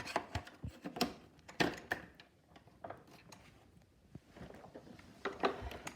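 Scattered clicks and light knocks from the hose and cap of a bagged upright vacuum cleaner being handled. They are busiest in the first couple of seconds, fall quiet, then come again briefly near the end.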